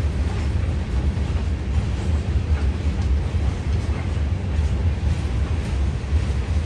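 Freight train cars, covered hoppers and boxcars, rolling past across a concrete bridge: a steady low rumble with a few faint clicks from the wheels.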